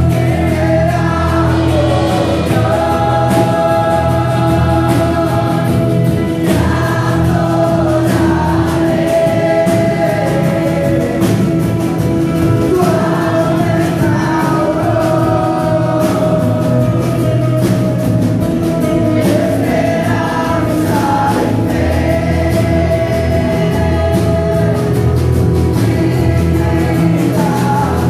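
A worship team singing a gospel-style worship song in group vocals with instrumental accompaniment and a steady drum beat.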